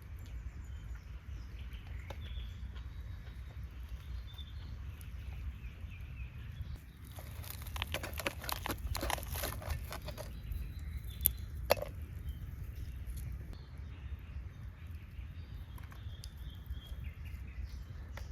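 Outdoor ambience: a steady low rumble, with a run of clicks and rustling about eight to ten seconds in and two sharp taps just after.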